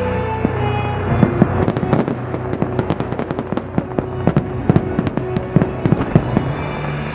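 Fireworks display: a rapid barrage of sharp firework bangs and pops, dense from about a second in until near the end, with the show's music playing underneath.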